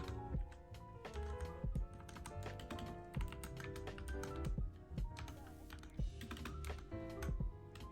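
Mechanical keyboard typing, a quick irregular run of keystroke clicks, over background music.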